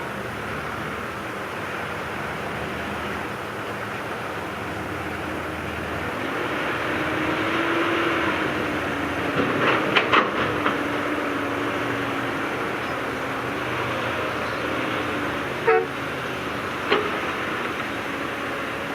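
Heavy earthmoving machinery's diesel engine running under load, its pitch rising and falling as it works. There are a few sharp metallic knocks about halfway through and two more near the end.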